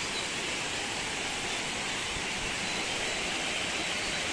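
Steady rushing roar of falling water from the Munduk waterfall.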